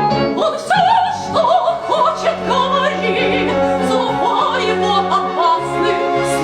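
Operatic singing with vibrato over an orchestral accompaniment. The voice comes in about a third of a second in.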